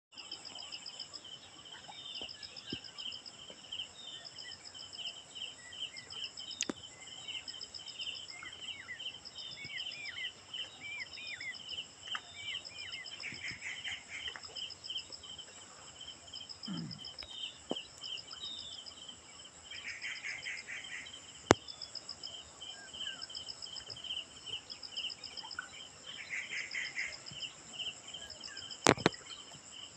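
Insects chirping in a steady, pulsing chorus, with short bird chirps scattered through it and a few sharp clicks, the loudest about two-thirds of the way in and near the end.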